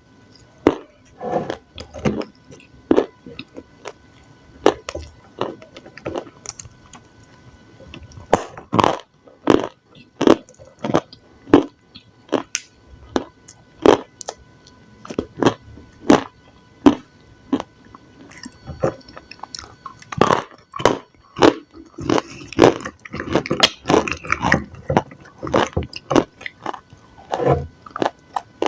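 Close-miked eating: bites and chewing, with short sharp clicks about one or two a second, coming thicker about two-thirds through.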